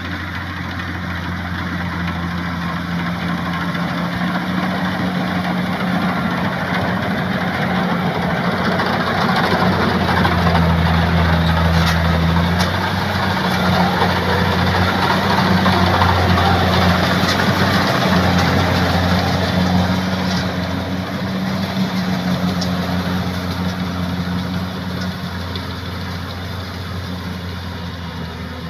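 Kubota rice combine harvester's diesel engine running steadily as it harvests, with a mechanical clatter over the engine hum. It grows louder toward the middle and fades again near the end.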